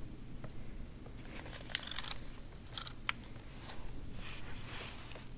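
Handling noise from a small plastic dashcam on a workbench: scattered light clicks and short rustles over a faint low hum.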